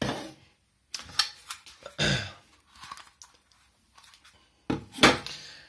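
Hard plastic parts of a Dyson DC50 cyclone unit being handled and knocked about on a worktop: a series of short clatters and scrapes, the loudest about five seconds in.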